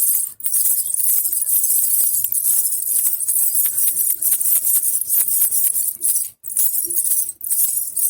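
Baby rattle (jhunjhuna) with small bells being shaken steadily, a dense, high jingling with a couple of brief breaks.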